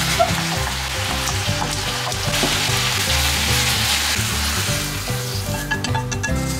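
Sliced pork, bean sprouts and onion sizzling in a hot frying pan while being stirred with wooden chopsticks; the sizzle drops away near the end.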